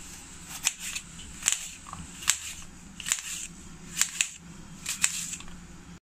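Kitchen knife slicing through a red apple on a plate, a short sharp click with each stroke as the blade cuts through and meets the plate, about nine strokes at a steady pace.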